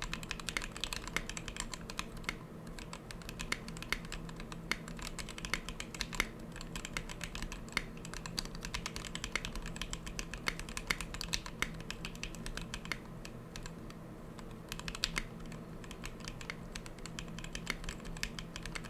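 Continuous typing on a TKC Portico gasket-mount mechanical keyboard with lubed 67 g TKC Tangerine linear switches and XDA-profile keycaps, a dense irregular run of keystroke clacks.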